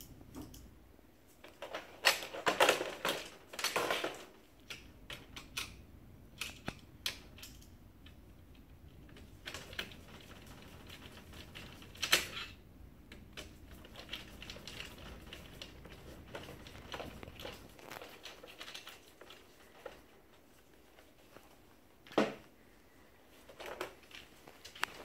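Plastic clicks, knocks and rattles of a laser printer fuser assembly being handled with gloved hands, irregular and scattered, with louder clusters a couple of seconds in, about halfway, and near the end.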